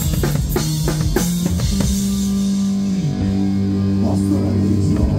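Live heavy metal band: the drum kit plays hard alongside the guitars, then about two seconds in the drumming stops and the guitar and bass hold a ringing chord.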